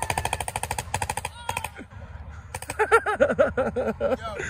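Tippmann paintball gun with an electronic trigger firing full-auto, a fast string of shots at more than ten a second for about a second and a half. Then come scattered shots mixed with a string of short rising-and-falling yells from a person.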